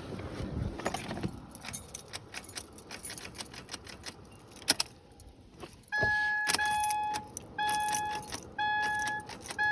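Car keys jangling with light clicks and rattles. From about six seconds in, a car's electronic warning chime beeps repeatedly in steady, evenly pitched pulses.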